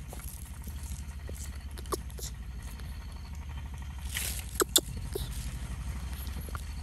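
Dry leaves crackling in scattered sharp clicks as a baby monkey squirms on them, with a short rustle and the loudest clicks a little before five seconds in, over a steady low rumble.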